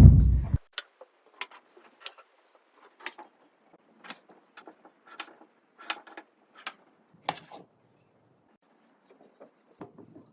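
A deep boom that cuts off half a second in, then about nine sharp taps and clicks spaced irregularly, roughly one a second, from kitchen food preparation, with a few fainter taps near the end.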